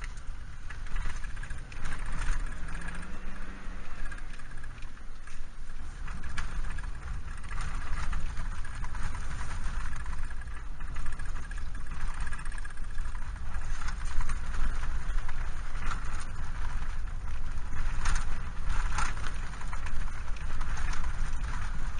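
Road noise inside a moving vehicle: a steady low rumble with scattered ticks and rattles.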